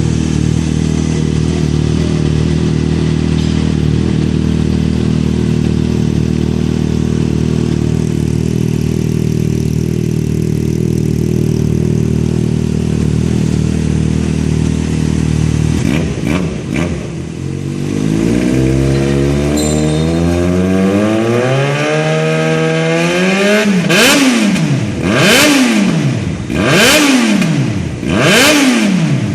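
Yamaha XJ6 inline-four engine breathing through an aftermarket Hurricane exhaust. It idles steadily, then from about halfway the revs climb slowly. Near the end it is blipped about five times in quick succession, each rev falling back.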